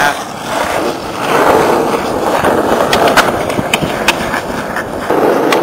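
Skateboard wheels rolling on rough asphalt, a steady grinding rumble, with a few short clacks from the board.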